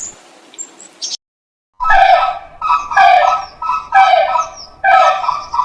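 An animal calling over and over, short loud calls about one a second, starting about two seconds in after a brief silence; before that, the faint end of bird chirping.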